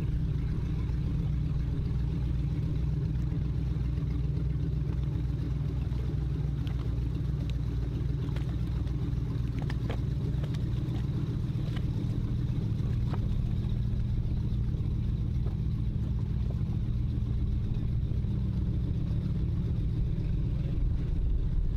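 Powerboat engines idling and running slowly at low speed, a steady low rumble with no revving.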